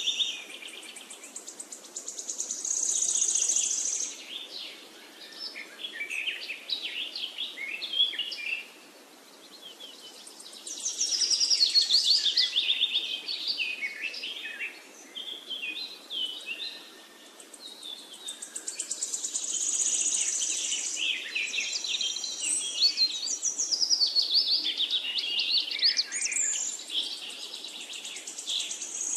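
Birdsong: several birds chirping and trilling rapidly, swelling and fading in waves every several seconds, over a faint steady hiss.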